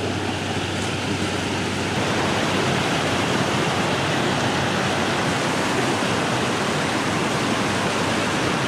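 Creek water rushing over rocks in a small whitewater rapid, a steady rush that grows a little louder about two seconds in.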